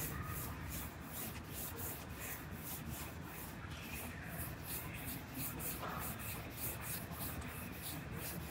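Sandpaper on a hand sanding block rubbed back and forth over a car's roof panel, in a steady rhythm of quick strokes, about four a second.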